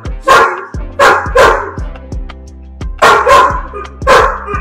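A young Labrador retriever barking repeatedly: about seven short, loud barks, mostly in pairs, with a break about halfway through. Background music plays underneath.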